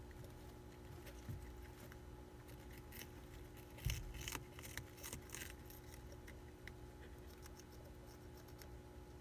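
Hamster nibbling a crisp lettuce leaf: faint crunchy snips and crackles, bunched around the middle, with a soft bump among them.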